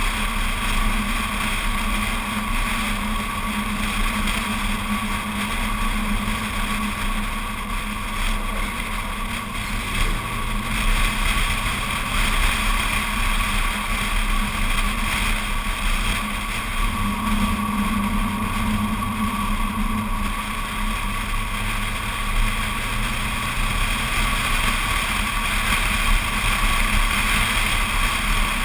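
BMW Z4 Coupé's straight-six running steadily at cruising speed, with tyre roar and wind rushing over a microphone mounted outside the car by the door mirror. The engine hum stays even, with only small swells in level.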